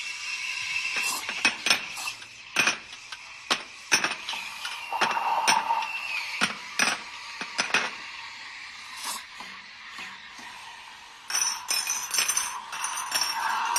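Café clatter: cups, saucers and spoons clinking and knocking in a string of separate sharp clinks, thickening into a quicker run of ringing clinks near the end.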